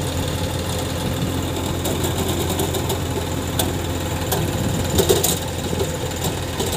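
Sonalika DI-740 tractor's diesel engine running steadily, with a few sharp clicks about five seconds in.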